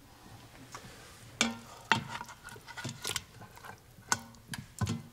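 Plastic ladle scraping and knocking against the stainless steel inner pot of an Instant Pot while scooping out meat and juices. Irregular sharp clicks and knocks, a few with a short metallic ring.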